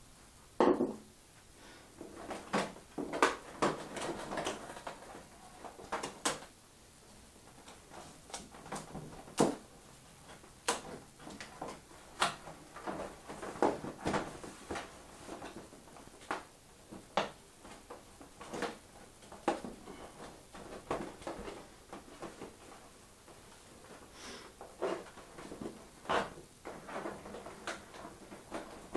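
Irregular taps, knocks and rustles of a stiff sheet of card or plastic being handled by hand, pressed flat on a surface and lifted.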